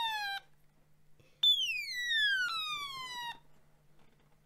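Otamatone on its high setting, sounding a high electronic tone that slides steadily down in pitch. One slide stops just under half a second in; a second begins about a second and a half in and falls for about two seconds before cutting off.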